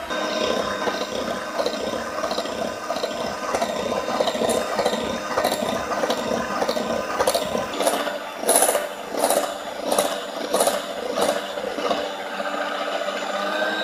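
Orpat electric hand mixer running steadily as its twin beaters whip cream in a glass bowl towards stiff peaks. From about the middle, the beaters click against the bowl about one and a half times a second.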